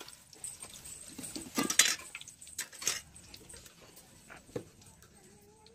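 Wire spider skimmer clinking and knocking against a stainless steel bowl a few times as fried mirchi bajjis are tipped in.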